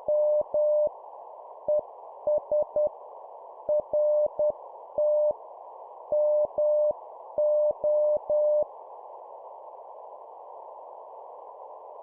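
Morse code (CW) sent at 10 words per minute: a single steady beep tone keyed in dots and dashes over a steady hiss. The keying stops about two-thirds of the way through, leaving only the hiss.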